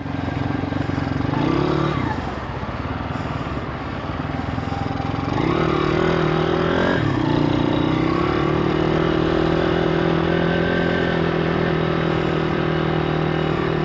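Pit bike's YX 160cc four-stroke single-cylinder engine, running on a newly fitted cylinder head, pulling away and riding along the road. Its note drops about two seconds in, climbs again around five seconds, then holds a steady cruising pitch.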